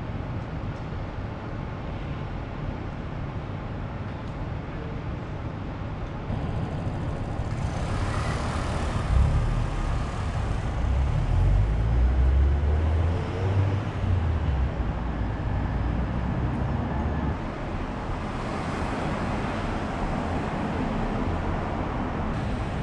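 Road traffic on a busy city street, a steady wash of passing vehicles. It swells about seven seconds in to its loudest, with a low rumble, between about nine and fourteen seconds, as heavier traffic goes by, then settles back.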